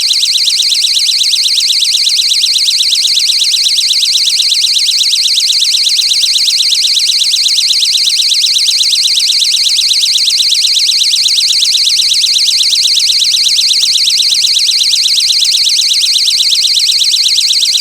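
Loud, shrill electronic beeping repeating rapidly and evenly, about five beeps a second, without a break.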